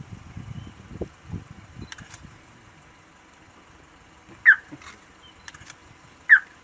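A young warthog squeals twice from inside its burrow, short, sharp cries falling in pitch and about two seconds apart, as a leopard digs it out. Low rumbling and a few knocks fill the first two seconds.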